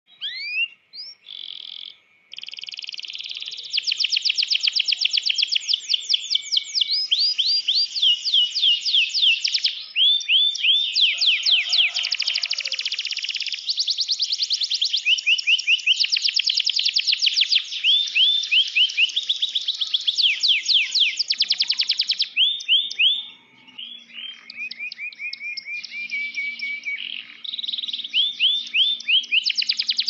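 Domestic canary singing a long, continuous song of fast, high trills and rolls, each made of rapidly repeated rising and falling notes. It opens with a few separate notes and breaks off briefly about three-quarters through.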